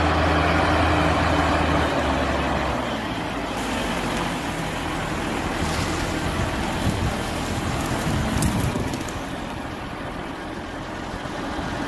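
Diesel engine of a KhTZ-241K articulated tractor running close by. It holds a steady low hum for the first two to three seconds, then sounds rougher and noisier.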